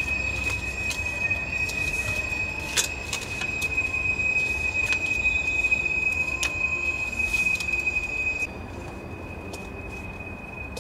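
Stainless steel mixing bowl ringing with a steady high-pitched tone as hands knead dough in it, with scattered knocks of hands and dough against the bowl; the ringing turns quieter about eight seconds in.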